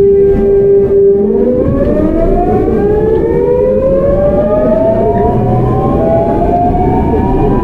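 GEC Alsthom GTO-VVVF traction inverter of a Seoul Metro 8000-series train whining as the train accelerates. The whine holds one steady pitch, then about a second and a half in it shifts into several tones that climb steadily together, over the low running rumble of the car.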